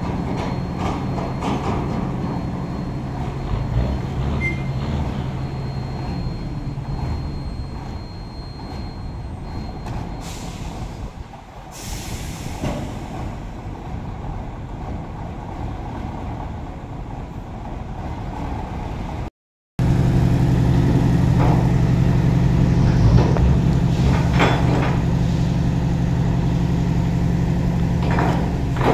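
Diesel engines of container tractor trucks, first a Mitsubishi Fuso and then an Isuzu, idling steadily with a low hum. A short hiss of air, typical of a truck's air brakes, comes about twelve seconds in.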